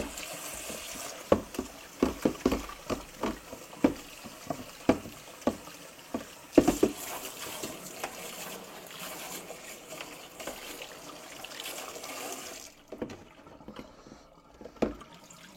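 Water running out of a plastic mop bucket's drain holes, a steady trickling flow that stops about thirteen seconds in. Repeated knocks and clicks from the bucket being handled, the loudest about six and a half seconds in.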